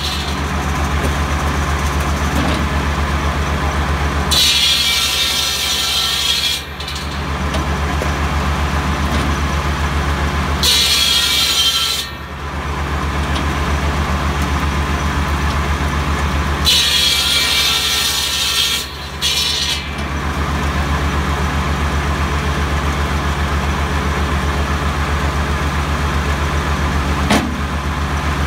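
Tractor-driven buzz saw (cordwood saw): the Kubota B7100's diesel engine and the spinning circular blade drone steadily, and the blade cuts through tree branches three times. Each cut is a loud, high-pitched rasp lasting one to three seconds, roughly six seconds apart.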